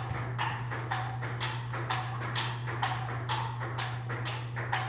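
Table tennis rally: the ball clicking back and forth off the bats and the table, about three to four clicks a second, over a steady low hum.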